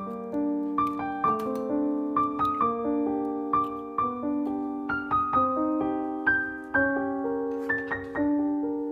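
Background music: a solo piano playing a gentle melody, notes struck one after another about every half second and left to ring.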